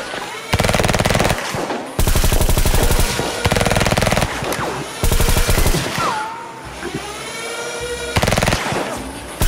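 Bursts of automatic machine-gun fire sound effects laid over a Nerf blaster fight: about five bursts of rapid, evenly spaced shots with short pauses between them.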